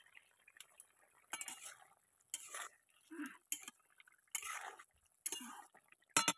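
Metal spatula scraping and stirring a simmering fish-and-vegetable curry in a metal kadai: about six separate wet scrapes, roughly one a second.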